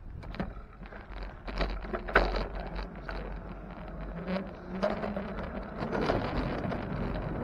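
Irregular clicks, knocks and rattles from a bicycle being ridden, with a low wind rumble on the microphone growing toward the end.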